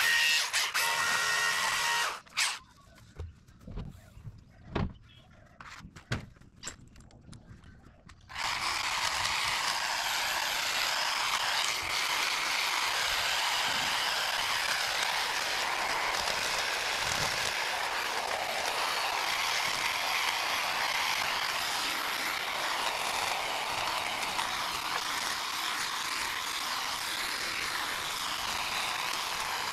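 A power tool stops about two seconds in, leaving a few knocks and snaps of branches. From about eight seconds in, a Husqvarna battery pole hedge trimmer runs steadily with a rattly chatter as its blades work through the shrub.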